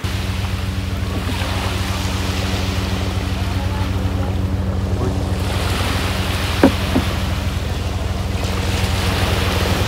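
An engine running steadily with a low, even hum. Two short clicks come about two-thirds of the way through.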